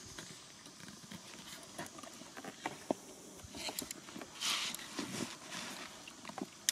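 Faint outdoor ambience with scattered light taps and scuffs, and a brief rustling hiss about four and a half seconds in.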